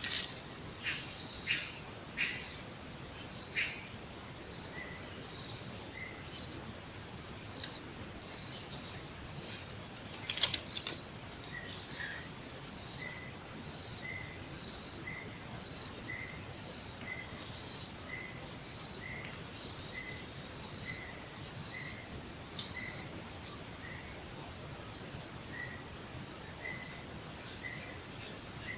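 Insects droning steadily at a high pitch, with a louder chirp repeating about once a second that stops a little over twenty seconds in and a fainter, lower chirp keeping time alongside. A few brief knocks come near the start and again about ten seconds in.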